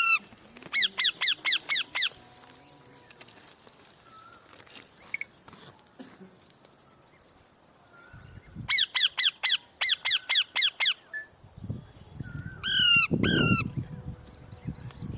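A parrot giving quick runs of falling chirps, one run about a second in and another about nine seconds in, then two louder falling calls near the end, over a steady high-pitched insect drone.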